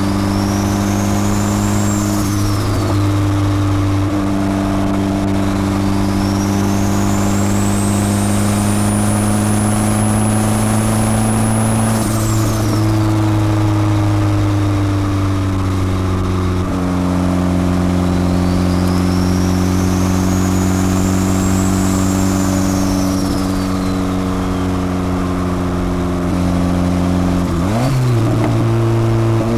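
Turbocharged Honda Civic D16 1.6-litre four-cylinder with forged internals, running steadily under load. The turbo's whistle climbs slowly to a high pitch and then falls away quickly, three times over.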